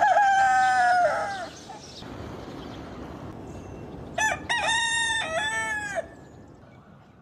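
Rooster crowing twice: a cock-a-doodle-doo already under way at the start that ends about a second and a half in, then a second crow about four seconds in lasting nearly two seconds. A steady faint hiss of outdoor background lies between the crows.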